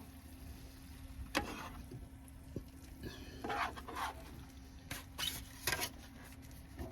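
A utensil scraping and clicking in a pan as a stir fry is stirred, in short irregular strokes over a steady low hum.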